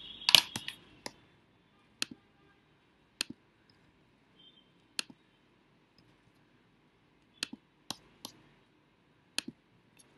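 About a dozen sharp, isolated computer mouse clicks, spread irregularly, with a quick cluster in the first half-second.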